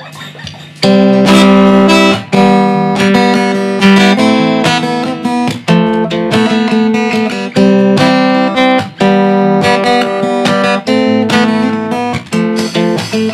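Acoustic guitars strumming chords as a song's instrumental opening, coming in loud about a second in, with a new chord every second or so.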